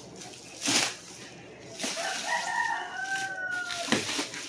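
A rooster crowing once: one drawn-out call of about two seconds, starting about two seconds in, its pitch sagging slightly toward the end. Before and after it come short loud scrapes as the tape on a cardboard box is cut and the box is opened.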